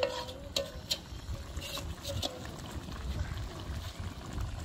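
Chicken and potato curry simmering and bubbling in a large metal karahi over a wood fire, with a ringing from the pan and a few light clinks of a metal slotted spoon against it near the start.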